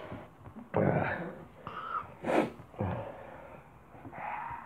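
Close-up mouth sounds of eating: biting and chewing soft food, with breathing through the nose. A short, loud nasal breath comes about halfway through.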